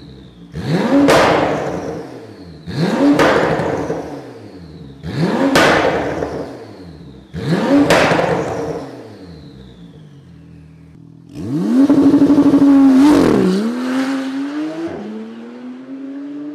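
Porsche 991 Turbo S twin-turbo flat-six through a full Fi Exhaust system, revved four times in short blips while standing still. Each blip rises and falls with a sharp crack at its peak and a falling whistle after. A longer held rev follows, then a lower engine note rising steadily as the car pulls away.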